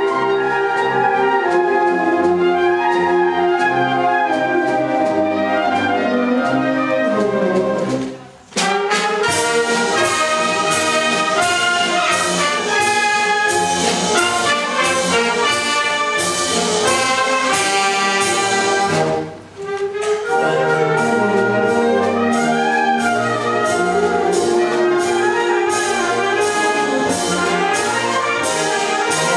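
Full concert wind band playing, brass and woodwinds together, with short percussive strokes keeping a steady beat in the second part. The whole band stops abruptly twice for a moment, about a third and two-thirds of the way through, before coming back in.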